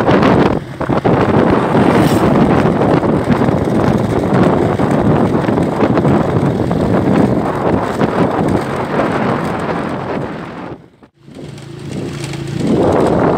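Heavy wind buffeting on the microphone from travelling in the open along a dirt road, over a vehicle's running engine. The wind noise drops away suddenly about eleven seconds in, and a steady low engine hum comes through near the end.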